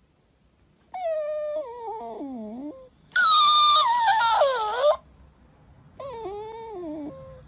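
Shiba Inu puppy whining: three long, wavering whines, each sliding downward in pitch, with short pauses between them.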